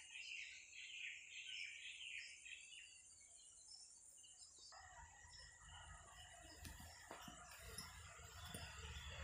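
Quiet background: faint distant bird calls during the first three seconds, over a steady high-pitched hiss, then a low rumble with light rustling from about five seconds in.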